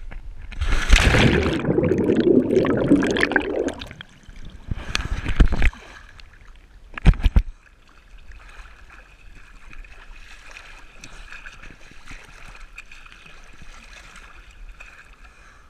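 Swimming-pool water splashing and churning loudly around a GoPro plunging in, heard through its waterproof housing. A few sharp knocks follow about five and seven seconds in, then water sloshes more softly against the camera at the surface.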